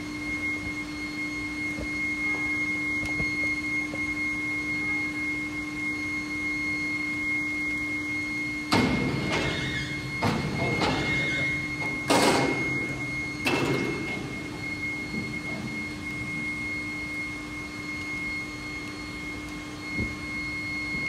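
Foundry machinery humming steadily with a constant high whine while molten metal is poured from a ladle into shell molds. Between about 9 and 14 seconds, four louder rough bursts of noise break in, each about a second long.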